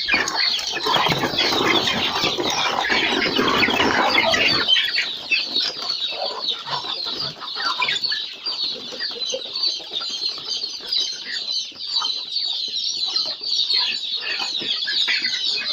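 A flock of free-range kienyeji chickens clucking and calling continuously while they feed. A loud rustling noise covers the first four seconds or so and then stops suddenly.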